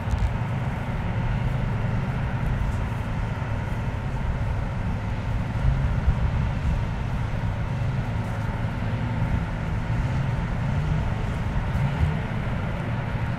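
Uragan multiple rocket launcher trucks (ZIL-135LM chassis, twin V8 petrol engines) running steadily with a low engine hum as they prepare to move out to their firing positions.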